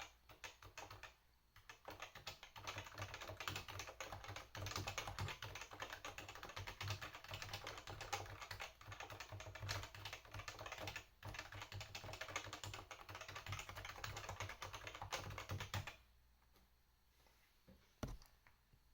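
Fast continuous typing on a Topre Realforce 87UB tenkeyless keyboard, its Topre capacitive rubber-dome keys giving soft, muted thocks. The typing stops about three seconds before the end, followed by one lone keystroke near the end.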